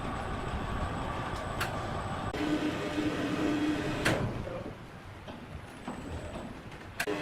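Sawmill machinery running with a steady rumble. A hum joins in about two and a half seconds in, and a sharp knock comes about four seconds in, after which the machinery runs quieter. Short clicks come near the end.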